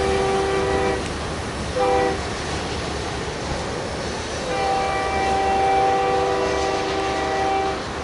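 Freight locomotive's multi-note air horn sounding the grade-crossing pattern from the head end of the train: a long blast that ends about a second in, a short blast near two seconds, then a final long blast from about four and a half seconds to nearly eight. A low rumble of the rolling freight cars runs underneath.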